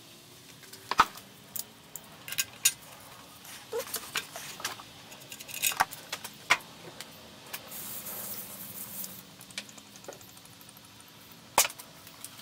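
Scattered metallic clicks and clinks of a socket wrench on the sump drain bolt of a 2005 Honda CR-V's 2.0-litre petrol engine as the bolt is undone to drain the old oil, with a brief hiss about eight seconds in.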